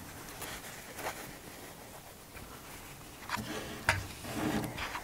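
Steam iron being pressed and moved over a fabric sleeve cap on a padded sleeve board: soft rubbing of iron and cloth, with a few light clicks and knocks about a second in and again around three to four seconds in.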